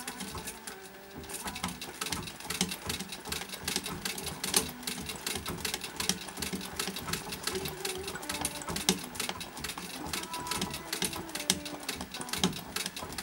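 Vintage treadle straight-stitch sewing machine running, its needle ticking rapidly and steadily as it does free-motion satin stitching. The ticking starts about a second in.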